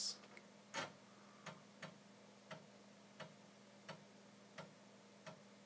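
Amiga 2000 floppy drive reading the Workbench 1.3 disk during a file copy to hard disk: a faint, regular click about every two-thirds of a second as the drive head steps from track to track, over a faint steady hum.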